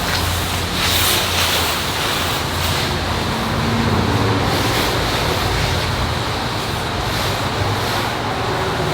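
Self-serve car wash spray wand rinsing a car: a steady hiss of water spraying onto the bodywork, with a low hum underneath.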